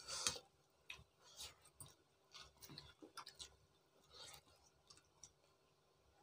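Faint, scattered clicks and smacks of people eating rice and curry by hand: chewing and mouth noises, and fingers working rice on steel plates.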